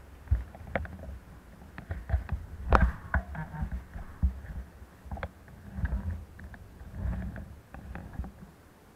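Irregular knocks, thumps and rattles of a ridden bicycle picked up through its mounted action camera. They come in short clusters with a sharp click about three seconds in, then stop shortly before the end.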